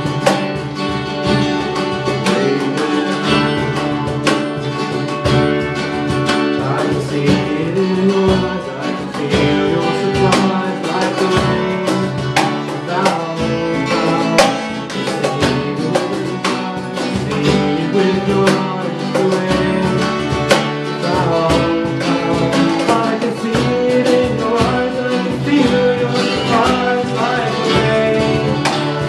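Several acoustic guitars strumming together in a live band performance of a country-folk song, with a male voice singing.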